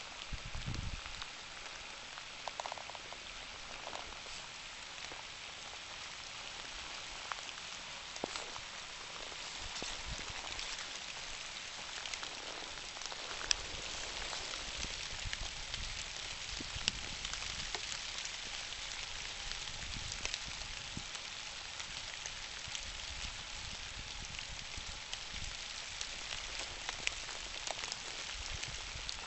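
Steady rain falling on leaf litter and bare branches, with scattered single drops ticking louder.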